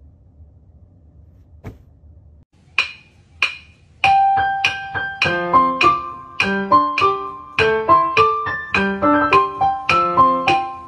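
Background music: after two short high notes, a lively piano tune starts about four seconds in, with quick notes over a moving bass. Before it there is only faint room noise and one click.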